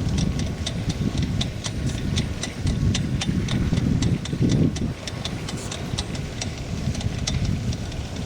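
Wind noise on the microphone aboard a sailboat under way: a steady low rush with many light, irregular ticks, several a second.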